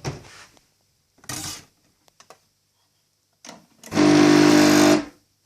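Severin espresso machine's pump buzzing loudly for about a second near the end, after two short noisy bursts and a few light clicks.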